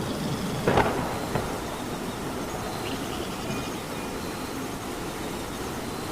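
Steady rain falling as an even hiss. A short, sharp knock sounds about three-quarters of a second in, and a smaller one follows about half a second later.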